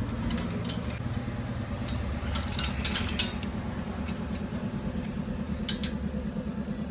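Sharp metallic clinks and ticks from tools and the caliper's 12 mm bolts being fitted to a disc brake caliper, a cluster about two to three seconds in and another near the end, over the steady drone of an engine idling.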